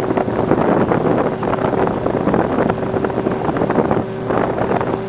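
Gyroplane's engine running at taxi power with a steady hum, mixed with wind rushing and buffeting over the microphone in the open cockpit.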